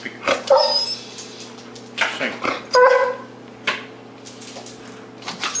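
Dog giving two short, pitched barks for a treat, one about half a second in and a stronger one about three seconds in, over a steady low hum.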